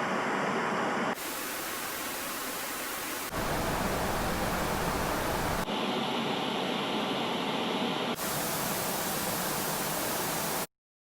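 A run of steady static hiss effects, about five short clips of even noise of different tone colour that switch abruptly every two to two and a half seconds. The noise cuts off a little before the end.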